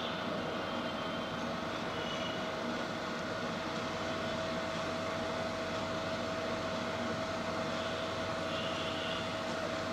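Steady background room noise: an even hiss with a faint constant hum tone running underneath.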